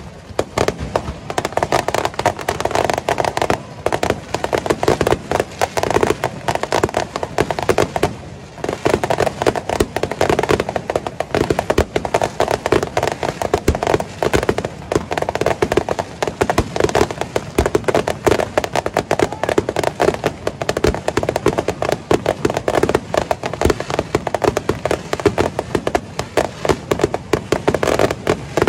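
Aerial fireworks display: a rapid, continuous barrage of shell bursts and crackling, with a short lull about eight seconds in.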